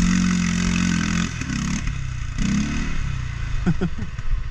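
CFMOTO CForce 450S ATV engine revving up and down as the quad churns through deep mud, with a hiss of spray and clatter over it. Near the end the sound changes to a steadier, evenly pulsing engine note.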